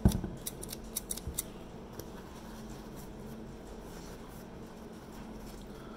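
A knock, then a quick run of light clicks over about two seconds from a pair of scissors being handled; after that only a faint steady hum.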